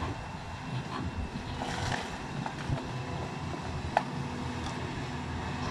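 Hydraulic excavator running steadily while its toothed bucket tears at a brick building's roof edge, with scattered knocks of breaking material and one sharp knock about four seconds in.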